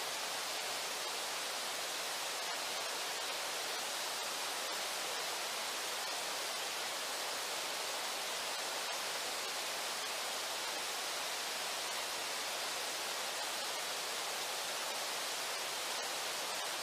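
Steady rush of river water, an even hiss that doesn't change.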